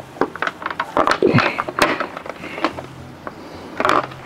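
A hard plastic motorcycle body panel being worked loose by hand: a string of irregular clicks and knocks from its clips and edges, with short scraping rattles about a second in and near the end.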